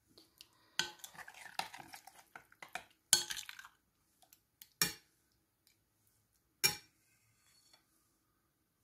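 Metal spoon stirring chicken livers in sour cream, scraping and clinking against the sides of the bowl. Repeated scrapes and clinks run through the first four seconds, then single sharp clinks come near five and near seven seconds in.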